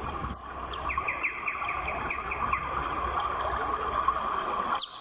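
Small birds chirping: a run of short falling chirps about a second in, and a quicker, higher run near the end, over a steady background hum.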